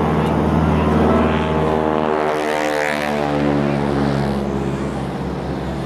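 Single-engine Zlin aerobatic propeller plane's engine droning overhead, its pitch shifting as it manoeuvres through tumbles.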